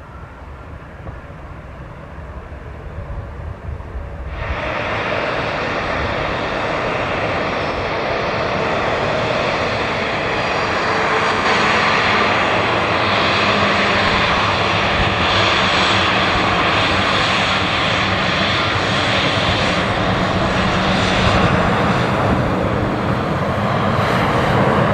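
Jet engines of an Embraer E195 airliner running loud and steady as it rolls along the runway close by, a whine over a heavy rush of engine noise. The sound comes in suddenly about four seconds in and grows louder before holding steady. Before that there is only fainter airport apron noise.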